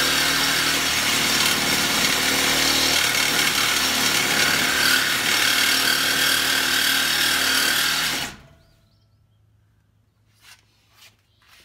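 Reciprocating saw running steadily as its blade cuts through the boat trailer's square galvanized steel tongue tube. It stops abruptly about eight seconds in, followed by a few faint clicks.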